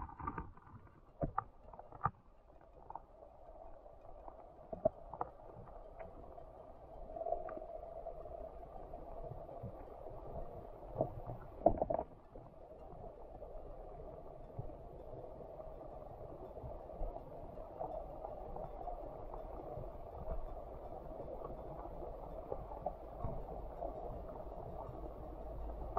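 Muffled underwater ambience of shallow fresh water heard through a submerged camera: a steady dull hiss with a low rumble, broken by scattered sharp clicks and knocks, most of them in the first couple of seconds and a louder cluster about halfway through.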